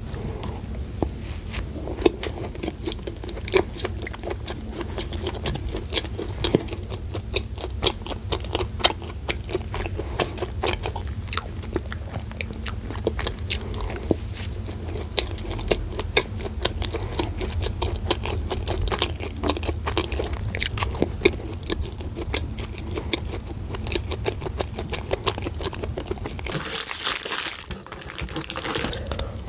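Close-miked biting and chewing of a dacquoise, with many small crisp crunching clicks over a steady low hum. A brief noisy burst comes about 27 seconds in.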